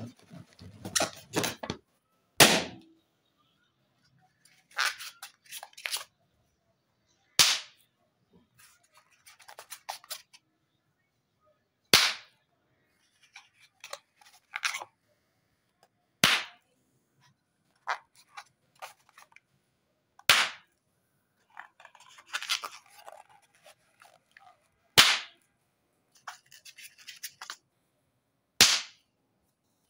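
Latex balloons popping one at a time: seven sharp, loud pops about every four seconds. Between the pops come quieter rubbing and handling noises as each balloon is squeezed in the hand.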